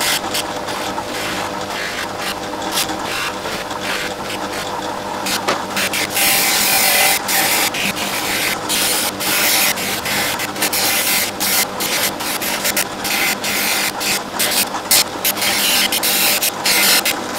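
Craft bench polisher motor running with a steady hum while its cloth buffing wheels hiss and rasp against wooden and brass parts of an antique plane being polished; the rubbing comes and goes in quick, uneven strokes, busier from about six seconds in.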